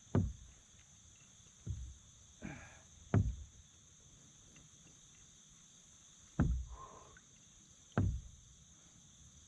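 Five knocks and thumps on a kayak's hull as the paddler shifts and handles gear in his seat, with two brief rustles between them. A steady high insect buzz runs underneath.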